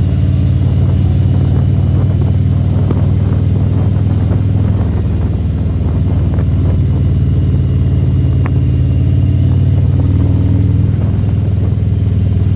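Motorcycle engine running steadily while riding, a loud low drone.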